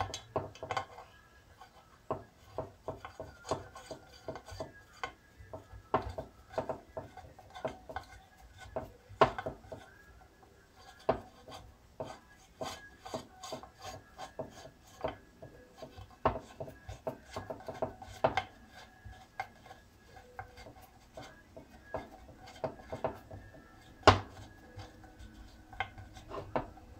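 Hex key turning a crankcase bolt by hand into a chainsaw's aluminium crankcase halves: irregular small metal clicks and scrapes, a few a second, as the key is turned and regripped. One sharper knock near the end.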